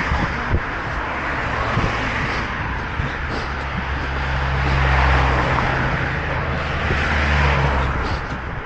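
A steady engine drone with a low hum under a rushing wash of noise, swelling to its loudest about halfway through and fading near the end.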